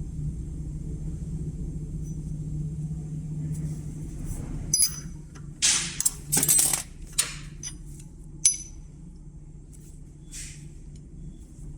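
Small metal tools clinking and knocking together as they are handled: a run of sharp clinks and brief metallic rings in the middle, the loudest one near the end of the run, over a steady low hum.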